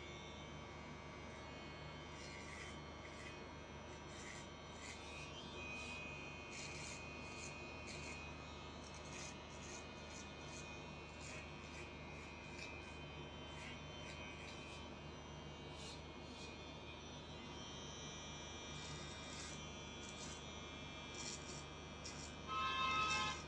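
Electric hair clippers running steadily while trimming the nape, with scattered faint ticks. Near the end a brief, louder high-pitched tone sounds for about a second.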